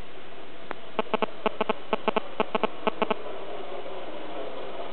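Red fox barking: a quick run of short, sharp yaps in pairs and threes, lasting about two seconds, over a steady background hiss.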